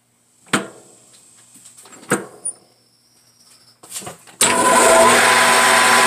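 A few sharp clicks and knocks, then about two-thirds of the way in a Grizzly G4003G metal lathe switches on and runs steadily, its motor and gearing spinning the four-jaw chuck with a receiver dryer clamped in it.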